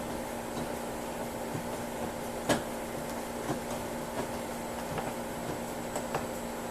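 Mini ratchet screwdriver with a Phillips bit driving a screw into a car's inner door panel: scattered light clicks about once a second, with one sharper click about two and a half seconds in, over a steady hum.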